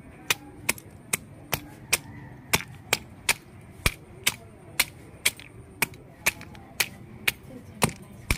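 A stone struck down on freshwater snails on a concrete floor, cracking their shells one at a time in a steady rhythm of sharp cracks, about two a second: the shells being broken to clean the snails for cooking.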